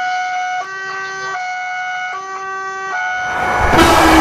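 Railroad crossing warning signal sounding, an electronic alarm alternating between two tones, each held a little under a second. Near the end the rumble of an approaching train rises and grows loud.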